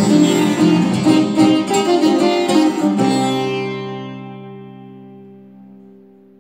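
Sitar and classical guitar playing a duet, which stops about three seconds in on a final chord that rings on and slowly fades away.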